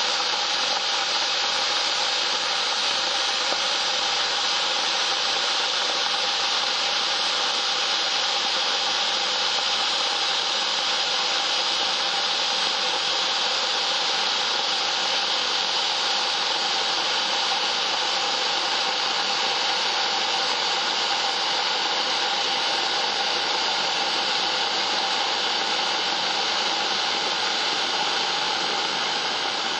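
Electric kettle heating water: a steady rushing hiss that holds unchanged throughout.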